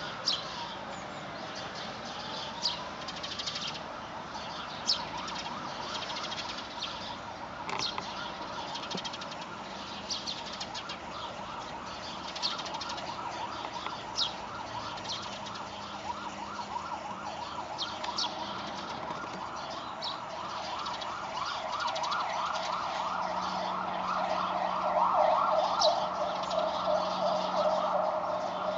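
Emergency vehicle siren: a slow rising and falling wail at first, then a fast warbling yelp that grows louder toward the end. Short high bird chirps come now and then.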